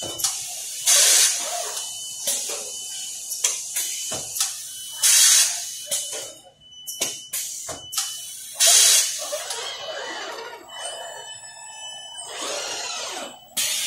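Robotic welding cell running: three loud bursts of compressed-air hiss about four seconds apart, as the cell's pneumatic valves exhaust, among sharp clicks and clanks. A faint steady high tone runs underneath, and a wavering whine comes in near the end.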